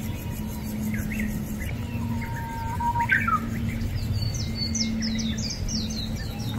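Small birds chirping, with a quick run of short, falling high chirps from about four seconds in, over a steady low hum.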